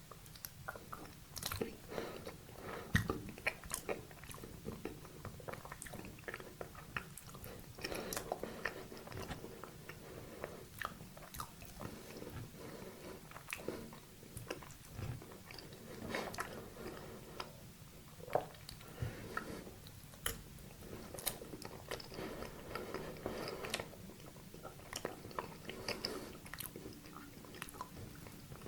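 Close-miked biting and chewing of a dessert, made up of many small irregular clicks and crunches of the mouth and food.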